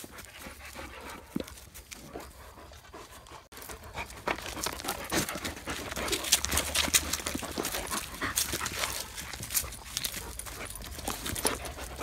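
A large dog panting close by, with scattered short clicks and rustling. The panting gets louder about four seconds in.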